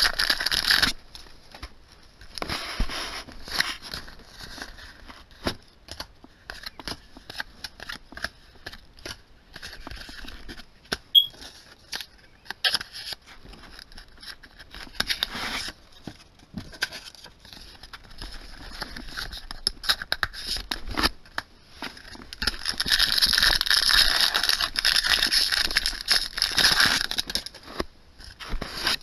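Yu-Gi-Oh! trading cards being handled and flipped through, many small flicks and taps of card against card. There is a brief crinkle of a foil booster-pack wrapper at the start and a longer stretch of louder rustling near the end.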